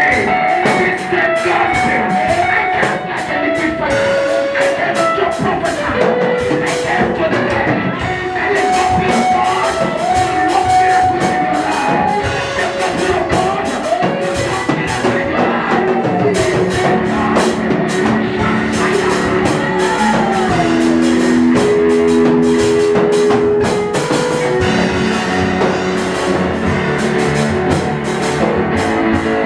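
Band music with drum kit and guitar, a steady beat under long held melody notes.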